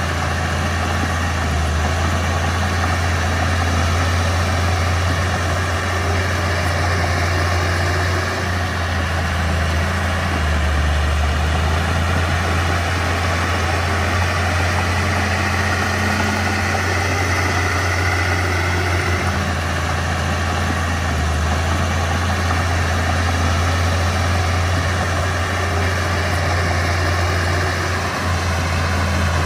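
Diesel engine of a Mitsubishi BD2F bulldozer running steadily, a deep even engine note with no revving.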